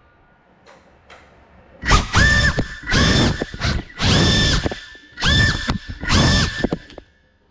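GEPRC CineLog35 cinewhoop's brushless motors spinning up in five short throttle bursts, starting about two seconds in. Each burst is a high whine that rises quickly, holds steady for half a second or so, then drops away.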